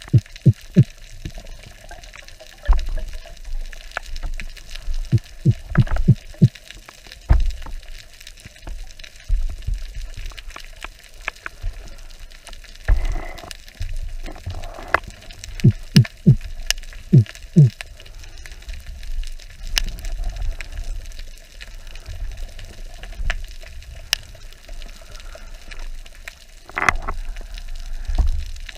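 Underwater, a diver makes short low grunting clicks in the throat to attract fish, coming in quick runs of four or five, twice. Under them runs a steady underwater crackle and hiss.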